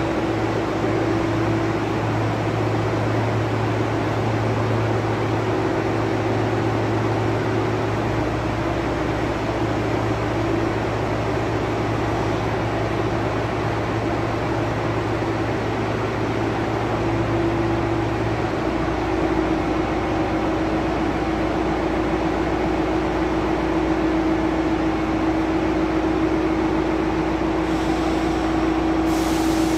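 Truck-mounted mobile crane's diesel engine running steadily under load while it works its boom, with a steady whine over it. The low engine note changes about two-thirds of the way through.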